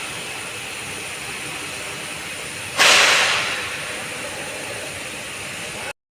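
Maruti Suzuki Dzire engine running with a steady, rough noise, from a car with a P0300 random/multiple cylinder misfire. About three seconds in there is a sudden loud hiss that fades over about a second. The sound cuts off abruptly near the end.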